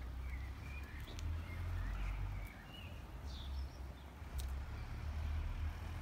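Outdoor ambience: wind rumbling on the microphone, with a few faint bird chirps in the first few seconds.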